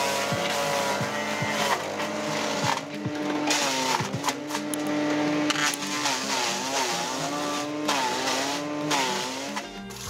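Power King 14 HP wood chipper's engine running steadily, its pitch dipping briefly and recovering several times as it bogs under the load of chipping wood.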